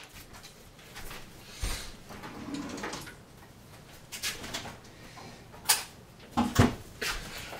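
Scattered light knocks and clicks of kitchen items being handled on a counter, with a low thump about two seconds in and a quick run of sharper clicks near the end.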